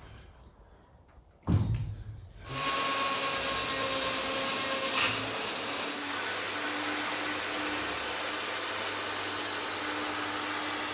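A thump, then an electric power tool's motor starts and runs steadily with a constant whine.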